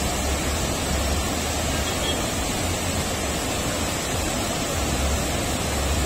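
Fast mountain river rushing through whitewater rapids over boulders: a steady, even rush of water.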